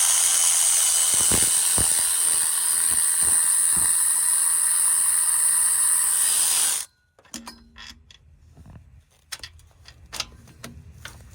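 Air ratchet running steadily with a loud hiss, backing out a starter mounting bolt, then stopping abruptly about seven seconds in. Small scattered clicks of the tool and the loosened bolt follow.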